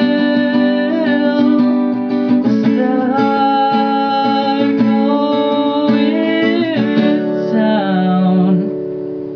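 Acoustic guitar strummed, with a voice holding long wordless notes over it. Near the end the playing stops and the last chord rings and fades.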